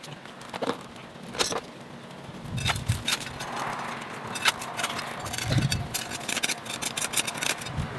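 Garden planting: soil scraped and crackling as it is worked by hand, with two dull thuds, one near three seconds in and one past five seconds, and a run of sharp clicks in the second half.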